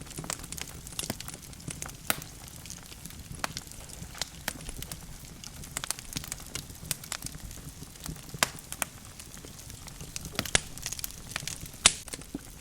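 Wood logs burning in a fireplace: irregular crackles and sharp pops over a low steady rumble of the flames, with a few louder snaps about two seconds in and near the end.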